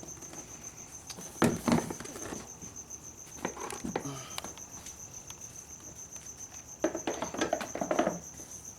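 Scattered knocks and clicks of a motorcycle seat being set into place on a Can-Am Spyder RT, the sharpest about a second and a half in and a cluster near the end, over a faint, steady, high-pitched pulsing chirp.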